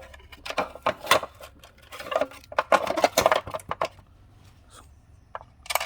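Light clatter and sharp clicks of small metal parts being handled as a replacement controller is fitted into an inverter generator, most of it in the first four seconds, then a quiet pause and a couple of clicks near the end.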